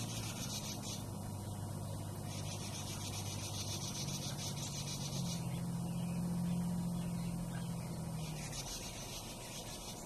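Northern mockingbird scolding with rasping, cicada-like buzzes in three bouts: a short one ending about a second in, a longer one of about three seconds in the middle, and another starting near the end. A steady low hum runs underneath and swells in the second half.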